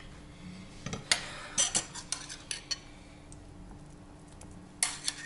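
Metal cutlery clinking and tapping against dishes as a fork and spoon work among plates and a bowl of mayonnaise: a string of sharp clinks from about a second in to nearly three seconds, and a couple more near the end.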